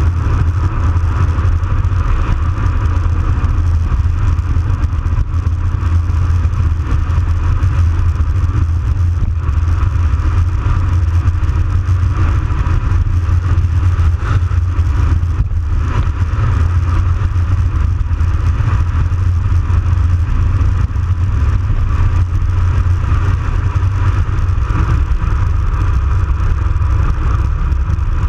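Wind buffeting the microphone of a bicycle-mounted action camera on a fast downhill run: a steady, heavy low rumble, with the hiss of tyres rolling on asphalt over it.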